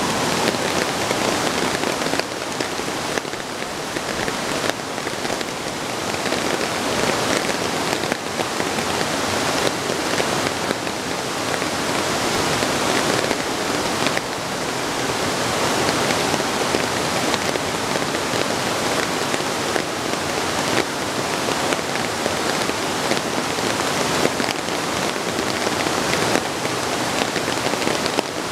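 Steady rain falling and pattering on surfaces, a dense even hiss of many drops.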